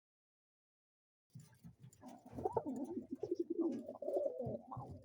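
Several roller pigeons cooing over one another. The cooing starts about a second and a half in and builds to a steady chorus of overlapping coos.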